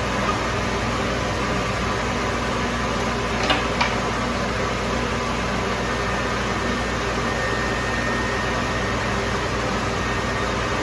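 Steady whirring hum of a screen-printing dryer's fan, running without a break, with a couple of faint clicks about three and a half seconds in.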